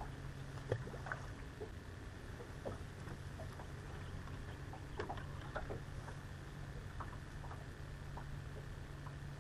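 Small clicks and taps from a bass boat on the water and the gear on its deck, over a steady low hum.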